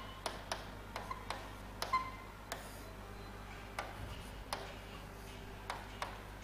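Writing on a board: faint, irregular sharp taps and ticks, some with a short squeak, over a steady low electrical hum.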